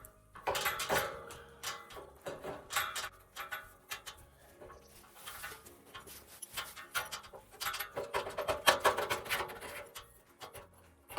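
Irregular clicks, clanks and scrapes of metal gate hardware being handled and fitted by hand, thickest near the end.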